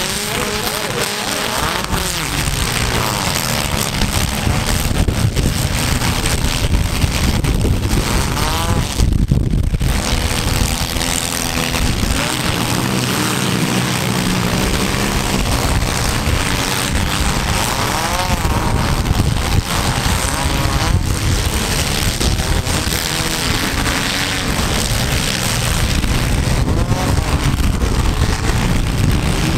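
Several compact demolition-derby cars' engines running hard and revving up and down together, with occasional bangs of impacts.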